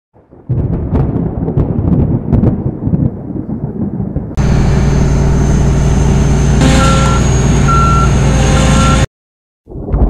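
John Deere T560 combine harvester running steadily, after a few seconds of uneven knocking and rattling. A reversing alarm beeps three times over the engine in the second half before the sound cuts off abruptly.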